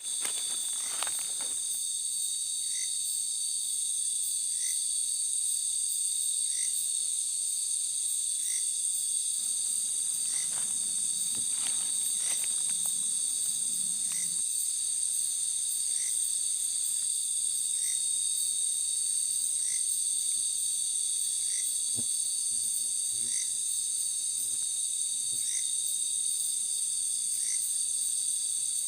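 Night insects, crickets, keeping up a steady high-pitched trilling, with a short chirp repeating about every two seconds.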